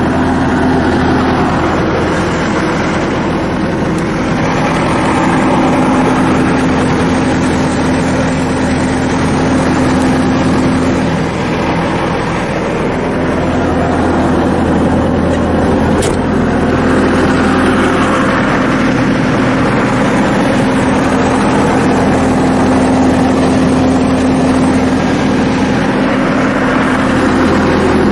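A 2009 Bobcat T190's diesel engine running steadily, with a single faint click about 16 seconds in.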